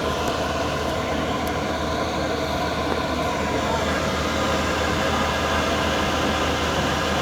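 Steady mechanical drone of a running machine, an even hum with several pitched tones that holds constant throughout.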